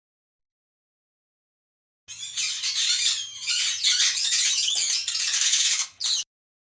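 Mouse squeaking in a rapid, high-pitched scratchy chatter that starts about two seconds in, breaks off briefly near the end and then stops abruptly.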